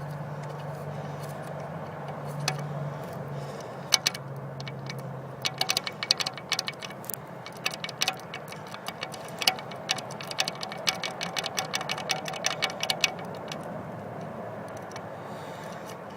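A low steady hum that fades out about five seconds in, then an irregular run of sharp metallic clicks and taps, several a second, lasting about seven seconds.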